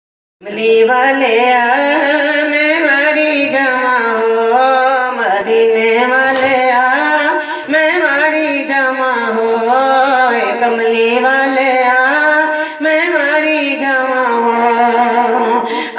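A woman singing a Punjabi naat into a handheld microphone held close to her mouth, drawing out long, wavering notes without clear words. The singing starts about half a second in.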